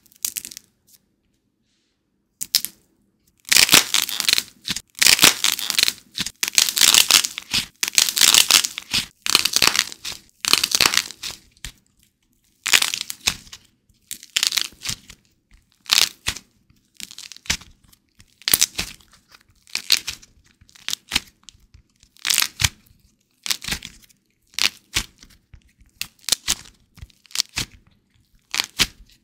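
Hands cracking and crushing a dried, glossy-coated white air-dry clay figure: the hard outer skin cracks and the soft clay inside crunches and tears. Dense crackling starts about three seconds in and runs for several seconds, then breaks into separate crunches about once or twice a second.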